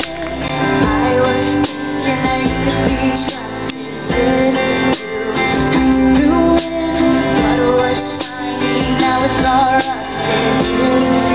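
A woman singing live with a small acoustic band: strummed acoustic guitars, keyboard and bass guitar.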